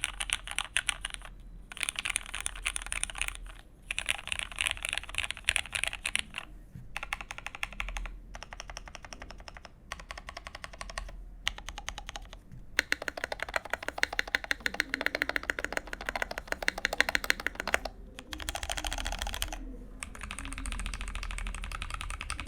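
Typing on an OTD The Cheat mechanical keyboard with vintage black linear switches and CRP Peacock keycaps: bursts of rapid keystrokes broken by short pauses, with the fastest, densest run in the middle.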